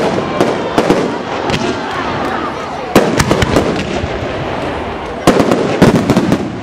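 Fireworks display: aerial shells bursting in a rapid series of sharp bangs over constant crackling, with dense clusters of reports about three seconds in and again near the end.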